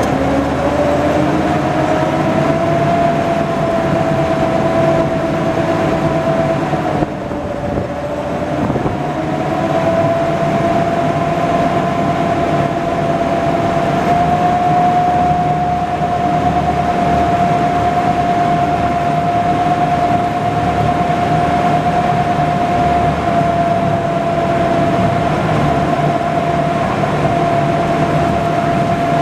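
Engine of an amphibious duck boat running under way on the water, with a steady whine over its drone. It picks up in pitch at the start, eases off briefly about seven seconds in, then comes back up and holds steady.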